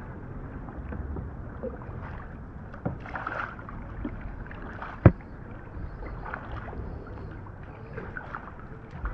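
Kayak paddling on a river: paddle blades dipping and splashing irregularly in the water. A single sharp knock about five seconds in stands out.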